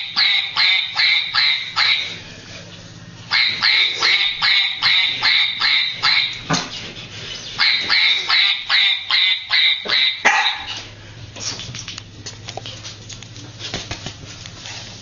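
Small long-haired dog yapping in rapid, high-pitched, squeaky calls, about three a second, in three runs with short pauses between; the yapping stops about eleven seconds in.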